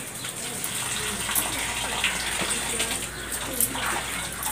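Water splashing and sloshing in a 200-litre plastic drum as hands squeeze liquid into it and stir it by hand, mixing a waste decomposer solution.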